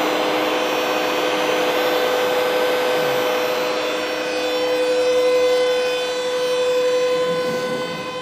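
Steady hum of running machinery: one strong, even tone with fainter higher tones above it over a constant hiss, swelling and easing slightly in loudness.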